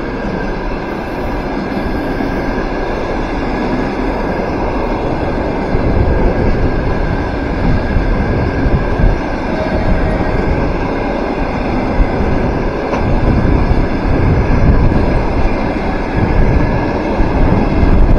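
Passenger coaches of a Russian Railways train rolling past on the track: a steady rumble of wheels on rails, getting louder toward the end.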